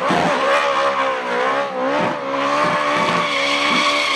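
Ferrari V8-engined Toyota GT86 drift car held at high revs, its pitch wavering up and down as it slides, with the rear tyres squealing and spinning in a smoky burnout.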